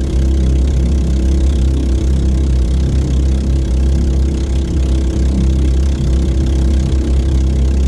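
Golden Horse 7 hp single-cylinder four-stroke engine driving an outrigger bangka at full speed, running steadily at high revs with its governor removed ("kapon"), over the rush of water and spray along the hull.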